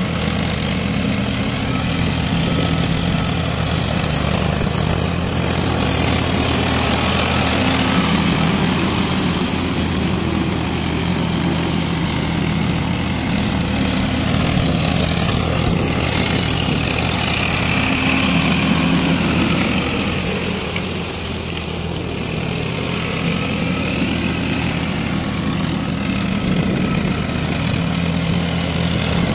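Farm tractor's diesel engine running steadily under load while it drives a rotavator through a flooded paddy field, churning the mud. The sound eases slightly about two-thirds of the way through, then picks up again.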